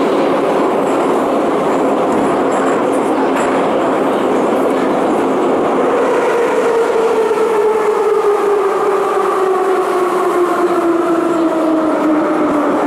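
Moscow metro train running through a tunnel, heard from inside the carriage: steady wheel and tunnel rumble, with the traction motors' whine sliding down in pitch from about six seconds in as the train slows.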